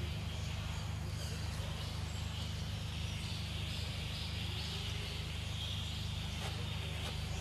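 Outdoor forest ambience: a steady high insect-like drone with faint bird chirps over a constant low hum, and a couple of faint clicks near the end.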